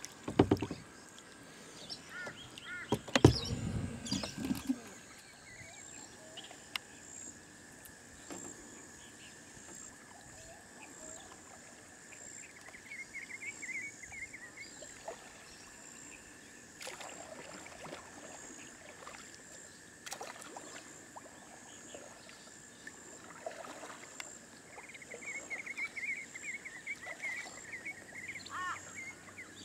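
Paddling a kayak on calm river water: a few loud knocks and thuds against the hull in the first few seconds, then quiet paddle and water sounds, with birds chirping briefly about halfway through and again near the end.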